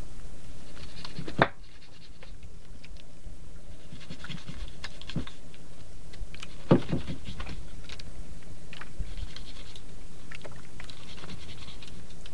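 Handline being hauled in by hand over the side of a wooden boat: scratchy rubbing and light ticks as the line runs over the gunwale and piles on the deck, with two sharp knocks, one a little over a second in and one about halfway through, over a low steady hum.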